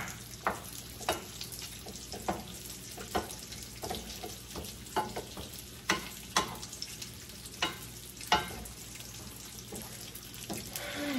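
Wooden spoon stirring scrambled eggs in a stainless-steel skillet, scraping and knocking against the pan in irregular strokes about once a second, over the sound of the eggs frying.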